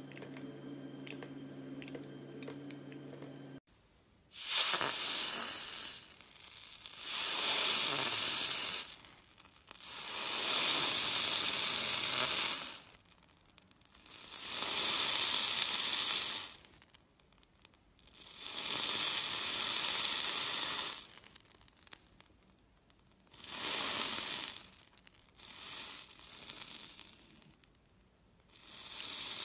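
A knife slicing again and again through a glitter-coated purple soap block: about eight cuts, each a bright crunchy scraping noise of one to three seconds with short silences between. Before the first cut, a few seconds of steady tones.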